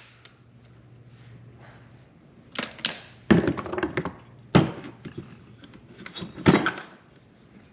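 Tools and metal saw parts being handled on a workbench during a teardown: a handful of sharp knocks and clunks with small rattles and clinks between them, over a faint low hum in the first few seconds.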